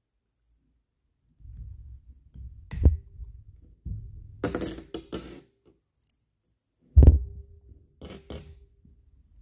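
Hands handling fishing tackle (a tube jig and beaded line) on a wooden tabletop: two sharp knocks on the table, about three seconds in and a louder one about seven seconds in, with small clicks and rustling between and two more clicks near the end.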